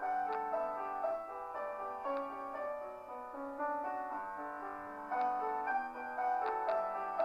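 Background piano music: a melody of held notes over soft chords.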